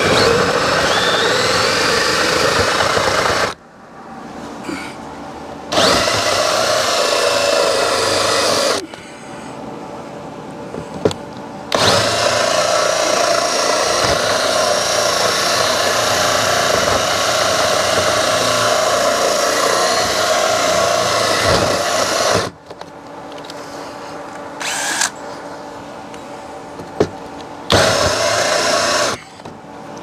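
Cordless drill running a hole saw through exterior lap siding, cutting out from a pilot hole drilled from the inside. It runs in four bursts of steady whine with short pauses between them; the longest, in the middle, lasts about ten seconds.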